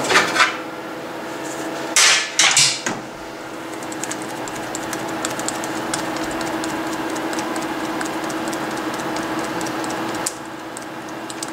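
Small motor of a bowstring serving machine running steadily while serving thread is wound onto the string, with loud plastic clattering of the serving jig near the start and again around two to three seconds in. The hum stops about ten seconds in.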